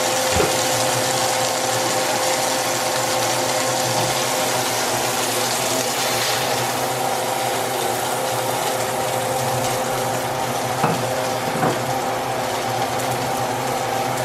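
Steak sizzling in hot oil in a cast-iron skillet, over a steady mechanical hum. Two faint taps come about eleven seconds in.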